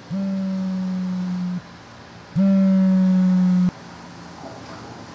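Mobile phone vibrating against a hard surface for an incoming call: two low buzzes about a second and a half long with a short gap between them, the second louder, after which the buzzing stops.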